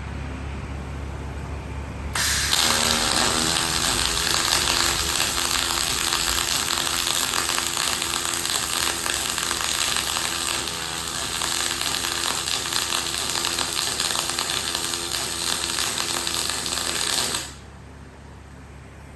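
Robot double-pulse MIG welding arc on 2 mm aluminium with 1.2 mm wire, T-joint: about two seconds in the arc strikes and runs as a loud, steady crackling hiss for about fifteen seconds, then cuts off suddenly.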